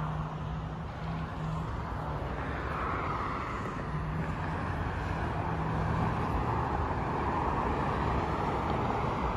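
Steady outdoor road-traffic noise, with a low hum that comes and goes.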